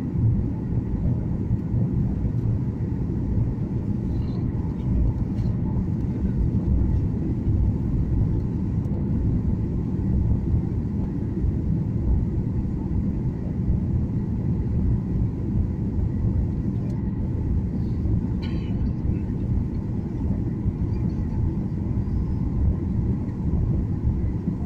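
Airliner cabin noise during descent: the steady low rumble of the jet engines and airflow heard from inside the passenger cabin.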